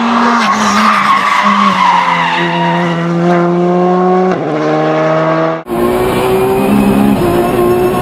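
Škoda Fabia R5 rally cars' turbocharged four-cylinder engines held at high revs through stage corners, with tyre squeal in the first couple of seconds and a jump in engine pitch about four seconds in. About a second and a half before the end the sound cuts hard to another rally car's engine heard from inside its cockpit.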